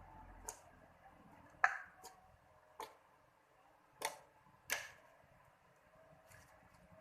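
Two-colour slime being handled: about six sharp clicks and pops at irregular intervals, the loudest near two seconds in and near the five-second mark.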